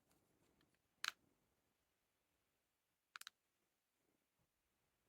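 A few sharp clicks over near silence: a double click about a second in, then three quick clicks about three seconds in.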